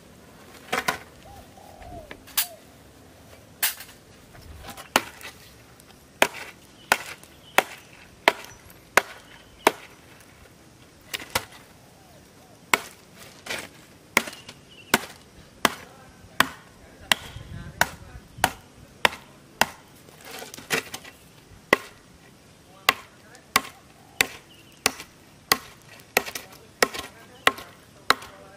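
Small hatchet chopping into a thick wooden branch: a long series of sharp, short chops, roughly one or two a second.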